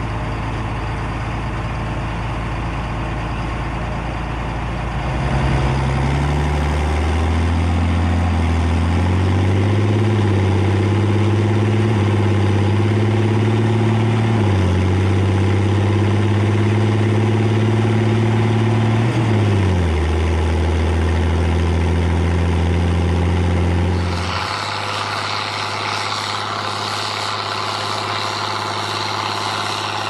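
John Deere 4755's six-cylinder turbo diesel running through an open straight-pipe exhaust, pulling a loaded tri-axle potato trailer. The engine note climbs in steps from about five to ten seconds in, dips briefly midway, and drops back at about twenty seconds. Near the end it settles to a quieter, steadier note.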